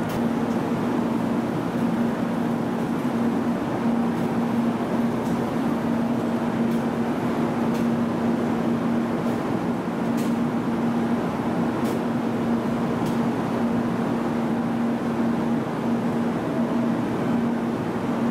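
700 Series Rail Star Shinkansen standing at the platform, its onboard equipment giving a steady hum with one low held tone.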